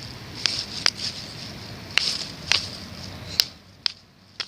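A rock striking stone over and over to try to make sparks for a fire: about seven sharp clicks, roughly one every half second, over a steady hiss that fades about three and a half seconds in.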